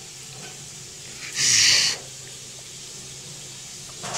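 A single sharp hiss, about half a second long, a little over a second in, against low room noise. A small click follows near the end.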